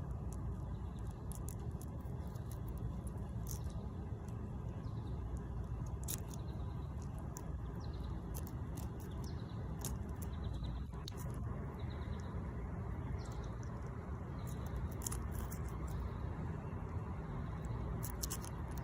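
Faint scattered clicks and scrapes of a small obsidian blade cutting into a small animal's body, over a steady low outdoor rumble.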